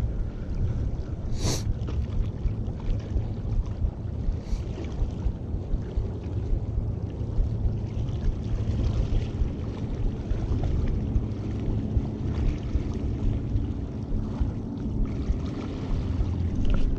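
Wind rumbling on the microphone over sea water washing against jetty rocks, a steady low noise, with one brief sharp tick about a second and a half in.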